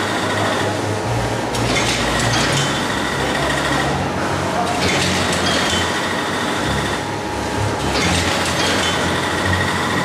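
Vertical form-fill-seal packaging machine running: a steady mechanical clatter over a low hum, with a brighter, higher phase that comes and goes about every three seconds as the machine cycles.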